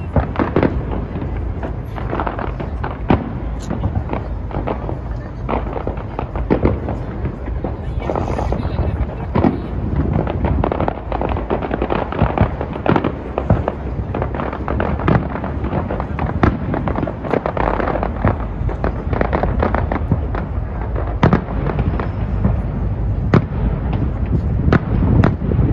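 Fireworks display: a dense, continuous barrage of bangs and crackling bursts, several every second.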